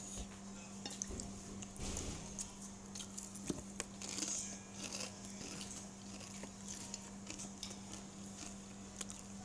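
A person chewing and biting food, with short irregular crunches and mouth clicks, over a steady low hum.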